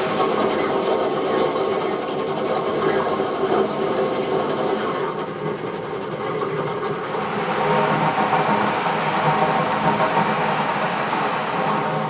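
Vermeer tracked rock trencher working hard stone: its diesel engine runs under load while the toothed saw wheel grinds and clatters steadily through the rock.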